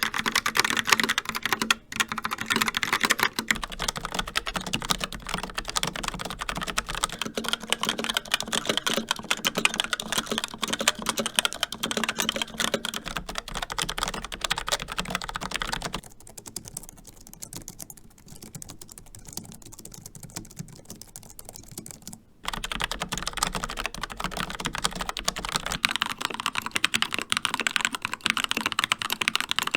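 Fast continuous typing on a series of keyboards, dense clicking key strokes. First come mechanical keyboards with tactile brown and Razer orange switches. Past the middle is a noticeably quieter, softer stretch typical of the low-profile scissor-switch Logitech MX Keys, then louder mechanical typing again from Gateron red switches.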